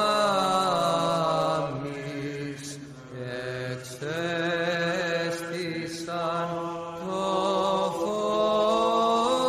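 Slow vocal chanting: voices hold long notes that slide from pitch to pitch over a low sustained drone, pausing briefly between phrases about three and seven seconds in.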